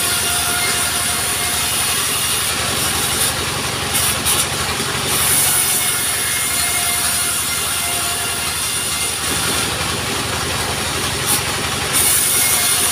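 Engine-driven sawmill running steadily, its saw cutting lengthwise through timber as it is pushed along the feed table; a bright hiss of cutting wood strengthens twice, a few seconds in and again around ten seconds.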